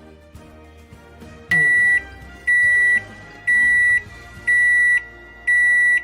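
Godrej microwave oven beeping: five long, loud electronic beeps of one high tone, about one a second, starting about a second and a half in, over background music.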